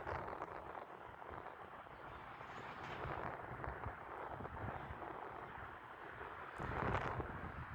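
Wind buffeting the microphone outdoors: an uneven, gusty rumble that swells near the end.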